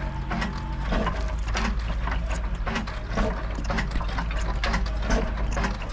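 Old desi copy of a Ruston stationary engine being hand-cranked by several men, turning over with a steady run of mechanical clicks, about two or three a second, over a low hum.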